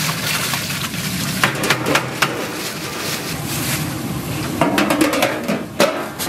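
Kitchen clatter at a large aluminium soup pot: seonji (congealed ox blood) is tipped from a plastic bag into simmering broth and stirred, with sharp clanks of metal near the end as the domed lid goes on, over steady background noise.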